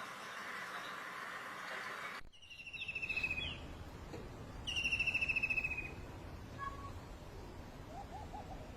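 Bird calls: a steady hiss, then an abrupt switch to a different recording about two seconds in, with two loud, rapid trilled calls, each a bit over a second long and slightly falling in pitch, followed by a few faint short notes near the end.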